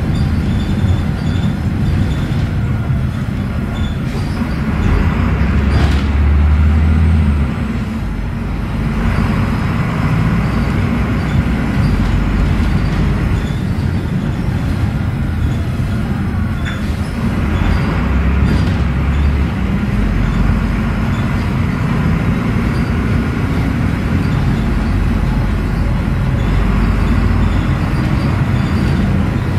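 Volvo B9SALF articulated bus under way, heard from inside the cabin: the Volvo D9B diesel and Voith automatic transmission running, with a continuous low rumble of engine and road noise. The low engine note swells twice, about five and about seventeen seconds in, and a few sharp rattles or knocks from the bus body and fittings come through.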